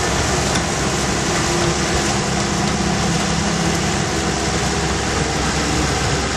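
Diesel engine of a Doosan amphibious excavator running steadily.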